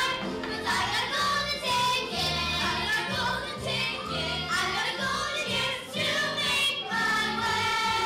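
A children's chorus singing a stage musical number together over instrumental accompaniment.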